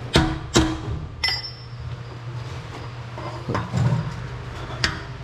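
Two sharp metal knocks with a short ring, then a bright metallic clink about a second in and a few lighter knocks: tools striking and handling metal exhaust parts under the car. A steady low hum runs underneath.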